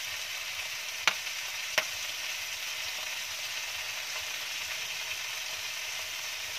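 Chicken pieces sizzling steadily in a non-stick grill pan over a wood fire, with two sharp pops a little over a second in, under a second apart.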